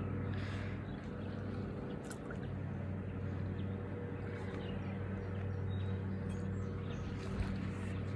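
Steady low engine hum, unchanging in pitch, with faint bird chirps here and there over it.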